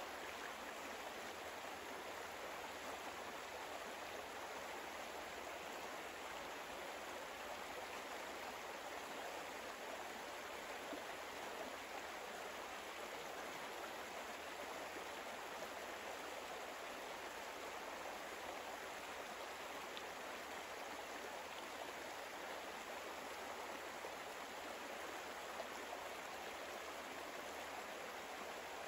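Soft, steady rushing of flowing water, like a stream, with no change throughout.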